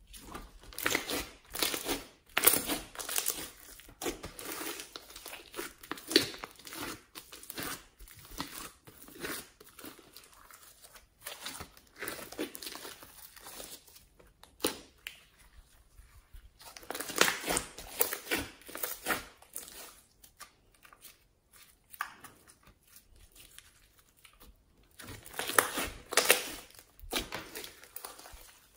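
Glitter-flecked slime being stretched, folded and pressed by hand, crackling and popping in bursts of quick clicks. The bursts are loudest near the start, about two-thirds of the way through, and near the end.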